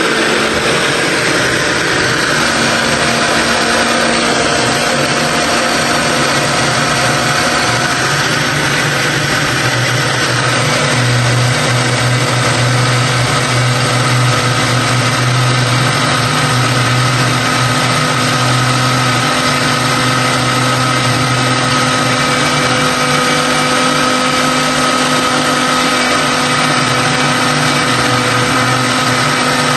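Electric kitchen blender running steadily, pureeing pumpkin leaves.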